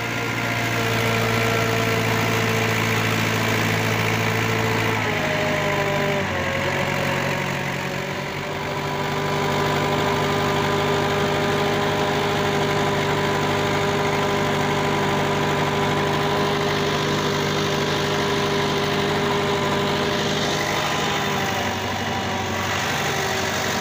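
Tractor engine running steadily while pulling a trolley loaded with soil. Its pitch drops slightly about five seconds in and shifts again near the end.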